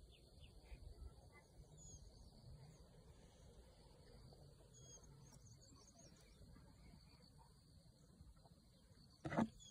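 Quiet outdoor ambience with faint bird chirps now and then. A brief, louder sound comes near the end.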